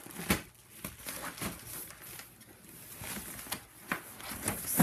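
Rustling and crinkling of nylon fabric as an inflated Therm-a-Rest NeoAir XLite air mattress is pushed into the foot box of a down quilt, with irregular handling sounds and a few sharper knocks, the loudest near the end.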